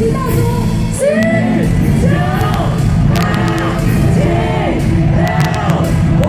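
A crowd shouting a New Year's countdown in unison, one number about every second, over loud music.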